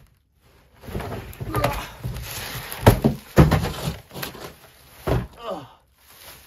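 A heavy portable inverter generator being hauled out of its cardboard shipping box: cardboard scraping and plastic wrap crinkling, with two heavy thumps about three seconds in and a man's short grunts of effort.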